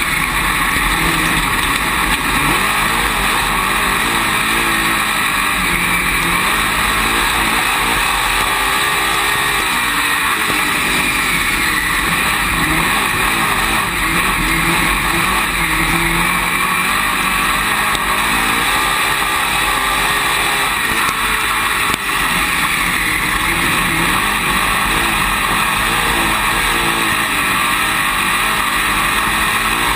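Dirt late model's V8 engine heard from inside the cockpit at racing speed, loud and continuous. Its pitch rises and falls again and again as the car accelerates and backs off around the oval, with wind and track noise under it.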